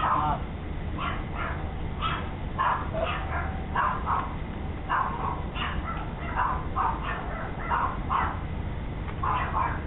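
Dog barking repeatedly, about two barks a second, often in quick pairs.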